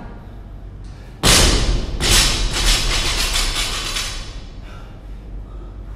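Barbell loaded with bumper plates dropped from overhead onto a rubber gym floor. It lands with a loud thud about a second in, bounces once more, and its plates rattle for a couple of seconds as they settle.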